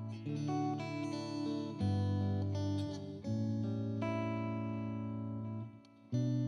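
Background music: a solo guitar playing a slow sequence of plucked notes and chords, with a short drop in level near the end.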